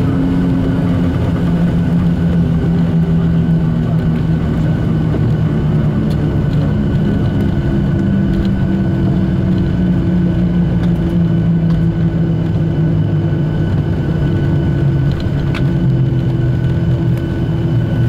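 Cabin noise of a Boeing 737-800 rolling along the runway after touchdown: a steady rumble with a low hum from its CFM56 engines that slowly falls in pitch as the aircraft slows.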